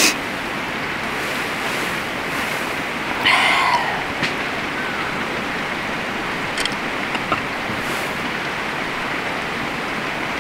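Steady rushing of a river flowing past, with one short, louder sound about three seconds in and a few faint ticks later.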